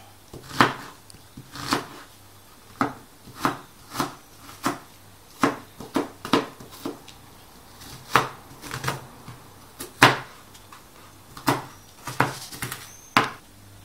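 Kitchen knife chopping an onion coarsely on a plastic cutting board: sharp, uneven knocks of the blade on the board, a little over one a second.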